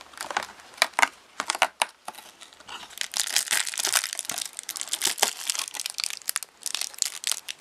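A cardboard advent calendar door being torn open, with a few sharp tearing snaps in the first two seconds, then the packet inside crinkling and rustling as it is handled for several seconds.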